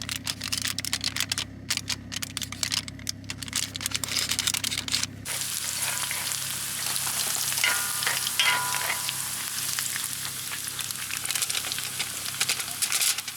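Food frying in a pan, crackling and popping at first. About five seconds in it turns into a steady, fuller sizzle.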